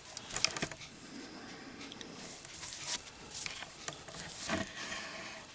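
Handling noises: scattered light clicks and soft rubbing as a boxed Zippo lighter is handled.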